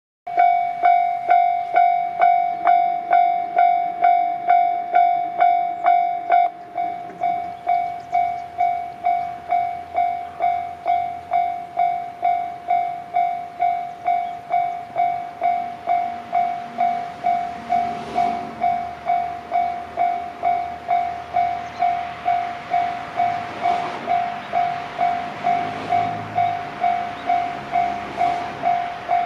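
Japanese railway level-crossing warning bell ringing its electronic 'kan-kan' about twice a second, turning quieter and thinner about six seconds in. From about halfway the running noise of an approaching electric train grows under it, with a few sharp clacks of wheels over rail joints.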